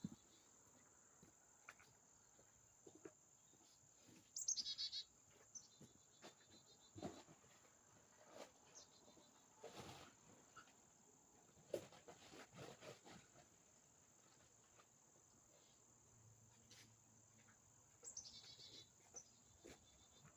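Faint outdoor ambience: insects droning steadily at a high pitch, with a small bird's short chirps about four seconds in and again near the end, and a few faint scattered knocks.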